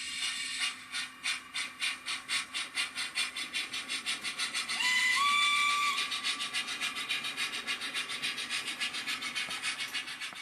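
Sound-fitted Rapido model of the locomotive Lion, its sound decoder playing a steam chuff through the model's small speaker. The chuffs quicken as the engine gets away, then keep a fast even beat. About five seconds in there is a short whistle that steps up in pitch, and the chuffing stops near the end.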